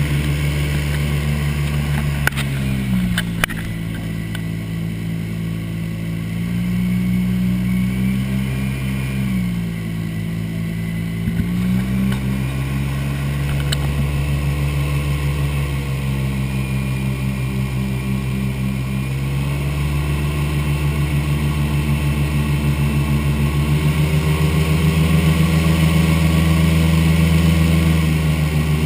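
Airboat engine and air propeller running at speed, a loud steady drone whose pitch steps down and back up several times as the throttle changes.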